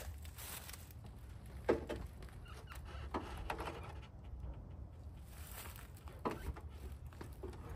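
A few scattered light knocks and clunks over a low steady hum, the loudest about two seconds in.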